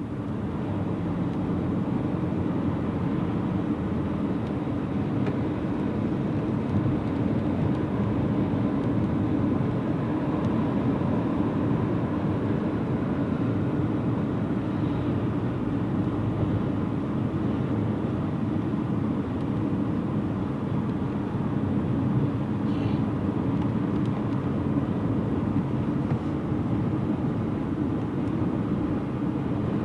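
Steady road and engine noise from a moving car, heard inside the cabin.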